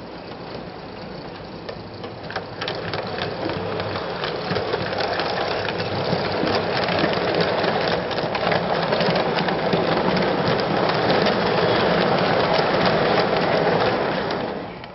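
O gauge model train running on the track: a steady rumble of wheels and motor with fine clicking, growing louder as it comes close, then cutting off just before the end.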